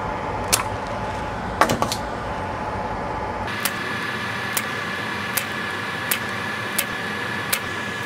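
A spring-loaded desolder pump and a soldering iron working at a circuit-board solder joint: a few sharp clicks over a steady hum, then a run of light ticks about once every second or less.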